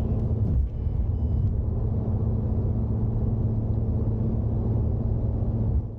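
A running motor vehicle: a steady low rumble with a constant hum, fading out at the very end.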